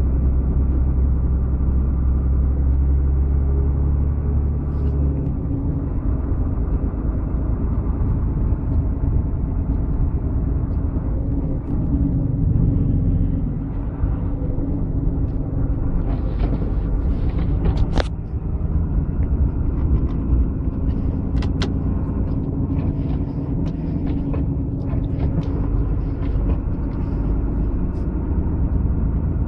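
Motor vehicle driving: a steady engine hum and road rumble, with scattered short clicks and knocks in the second half.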